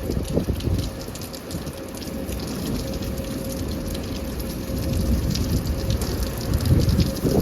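Steady rain pattering, with an uneven low rumble underneath. A tornado warning siren's steady tone drops away at the start and comes back just before the end.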